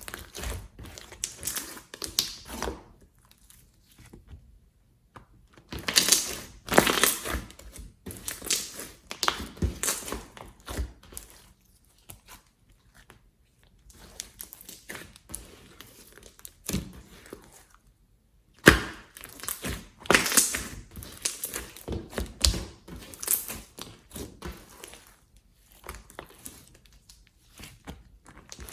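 Slime being squeezed, pressed and pulled apart by hand, making bursts of quick clicks and crackles broken by several short pauses.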